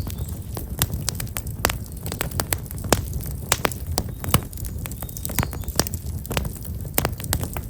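Black locust firewood burning in a campfire, crackling with many sharp, irregular pops over a steady low noise of the flames.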